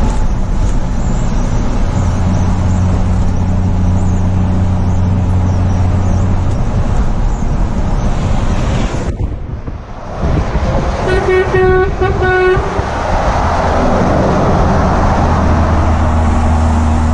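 Truck engine droning steadily, heard from inside the cab. About eleven seconds in, a single-note vehicle horn sounds in a quick run of short toots lasting about a second and a half.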